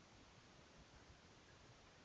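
Near silence: a faint, even hiss with no distinct sounds.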